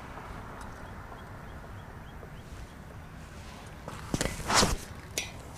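Brief scraping and knocking on the bridge's metal guardrail about four seconds in, as a hand and rope work against the rail to haul up a keep net, over a low steady background of wind and distant traffic.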